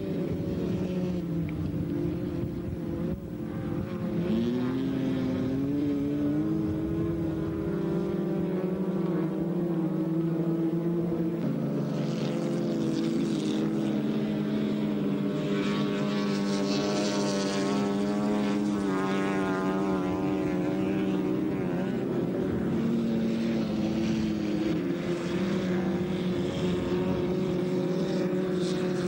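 Racing car engines running hard at high revs, several at once, their pitch rising and falling as the throttle changes; one engine climbs in pitch about four seconds in.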